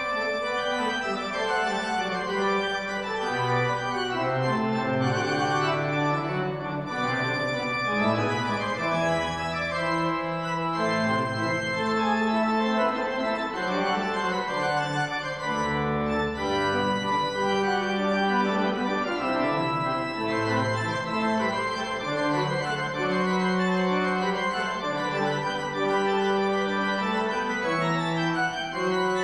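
Pipe organ playing slow, sustained chords, with deep pedal notes coming in about nine and again about sixteen seconds in.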